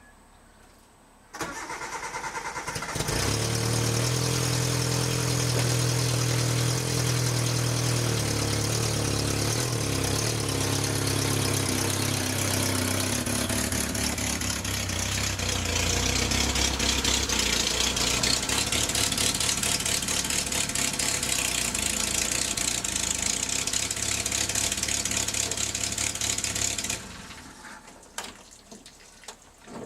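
1988 Suzuki Samurai's four-cylinder engine cranked on the starter, catching within a couple of seconds and then running steadily before shutting off near the end.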